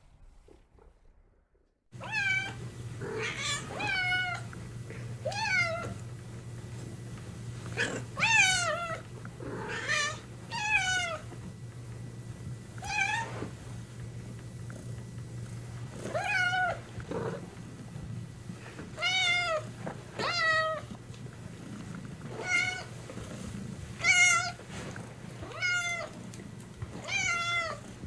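Domestic cat meowing over and over, about fifteen short meows a second or two apart, each bending in pitch, over a steady low hum. The first two seconds are nearly silent before the meowing starts.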